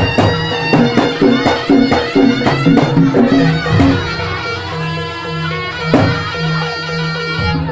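Javanese jaranan gamelan music led by a slompret, a reedy double-reed shawm, playing a sustained melody over a steady low drone. Quick pitched percussion strikes run through the first four seconds, then the shawm carries on over the drone, with one strong strike about six seconds in.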